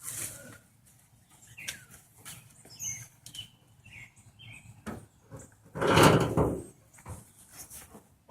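Handling noises from parts being worked on under a car's hood: scattered light clicks and knocks, and a louder scrape lasting under a second about six seconds in, with birds chirping faintly.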